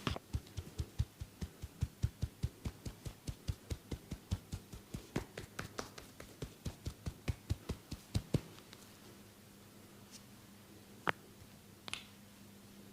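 Percussive massage strokes: hands striking the body in quick dull thuds, about four or five a second, stopping about eight seconds in. Two single sharp clicks follow near the end.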